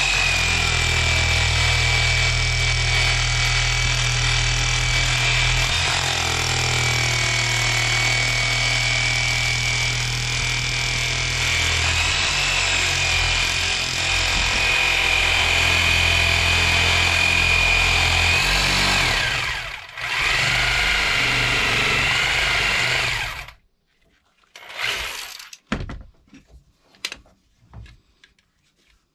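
Corded jigsaw cutting a vinyl floor plank, its motor running with a steady high whine. It drops out for a moment about two-thirds through, runs a few seconds more, then shuts off, followed by a few light knocks.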